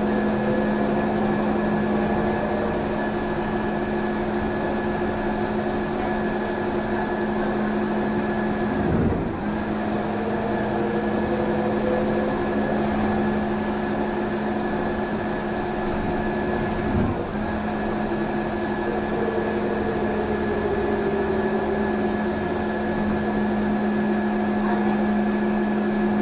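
Inside a trolleybus cabin under way: a steady electrical hum with a high whine over it, and a fainter motor whine that slowly rises and falls in pitch. The hum cuts out briefly with a soft knock twice, about nine and seventeen seconds in.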